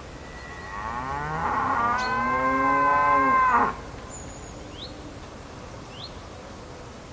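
A cow mooing: one long low call that rises in pitch, holds steady, and cuts off sharply near the middle.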